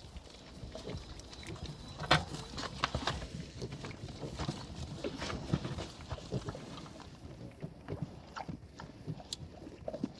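Farm animals moving about, with irregular light knocks and clatters throughout, the sharpest about two seconds in.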